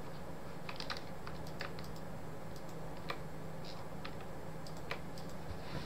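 Irregular clicking of a computer mouse and keyboard, a dozen or so sharp clicks scattered unevenly, over a steady low hum.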